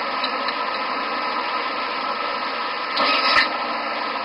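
Cockpit background noise of a DC-9 in flight, as picked up by the cockpit voice recorder: a steady rush of airflow and engine hum with faint steady tones running through it. About three seconds in there is a brief louder burst that ends in a knock.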